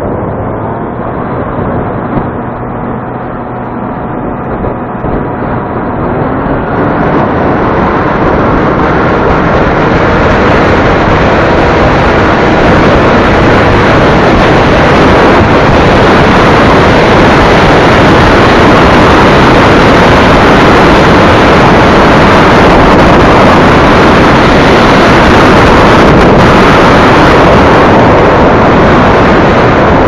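Heavy wind noise buffeting the EKEN H9R action camera's built-in microphone while riding a scooter. It swells over the first ten seconds or so, then stays very loud and steady, drowning out the engine.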